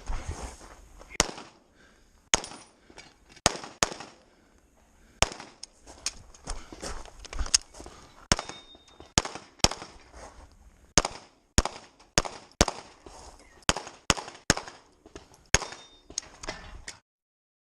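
Pistol shots fired in quick pairs and short strings with brief pauses between them, a competitor shooting an IPSC handgun stage. The shooting stops abruptly near the end.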